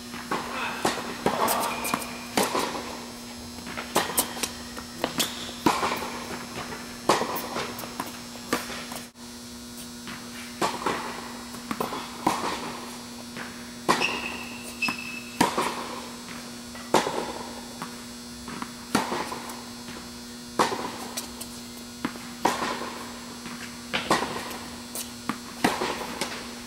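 Tennis balls struck by racket strings and bouncing on a hard indoor court: sharp pops every second or so, each with a hall echo. A steady electrical hum runs underneath.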